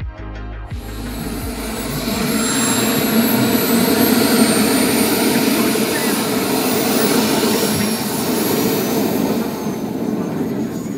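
The gas turbine of a large-scale radio-controlled F-16 Fighting Falcon jet model running: a steady roar with a thin high whine that drifts slowly in pitch, growing louder about two seconds in.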